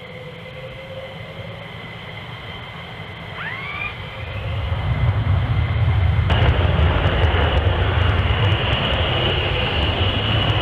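F-15E Strike Eagle's twin turbofan engines giving a steady high whine, then spooling up. About four seconds in the sound swells into a deep rumble, and a couple of seconds later it jumps to a loud rushing jet noise as the aircraft rolls down the runway.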